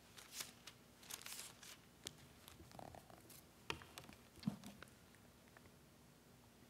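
Faint rustling of paper as Bible pages are turned at a pulpit, with two light knocks about halfway through.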